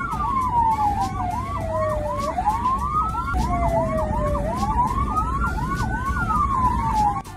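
Electronic emergency siren sounding two patterns at once: a slow wail rising and falling over a few seconds, and a fast yelp of about three sweeps a second. Beneath them runs a low, steady road rumble. The siren breaks off abruptly and restarts about three and a half seconds in.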